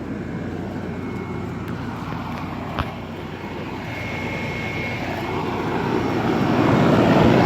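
Janitrol central air conditioner condensing units running: a steady hum of fans and compressors that grows louder toward the end, with one short click about three seconds in.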